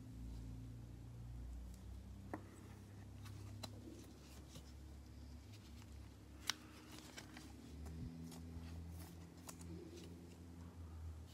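Trading cards handled by gloved hands: faint slides and scattered light clicks of glossy chrome cards, the sharpest click about six and a half seconds in.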